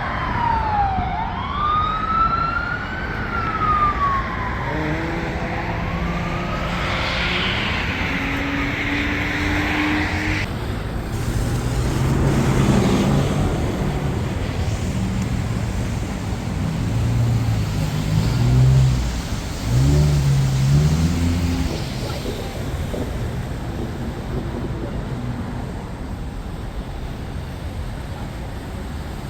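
Emergency-vehicle siren wailing, its pitch sweeping up and down for the first several seconds, then giving way to city street traffic with engines passing.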